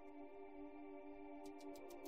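Quiet ambient chillout electronic music: sustained synthesizer pad chords, with a fast ticking percussion pattern coming in about one and a half seconds in.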